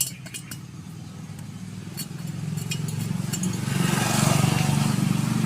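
A motor vehicle's engine passing by, swelling to its loudest about four seconds in. Under it, a few light metallic clicks as a bare piston is slid into the cylinder bore.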